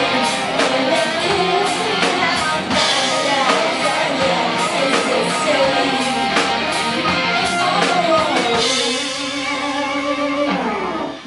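Live rock band playing, with electric guitar, drum kit and singing; the music drops off and rings out about ten and a half seconds in as the song ends.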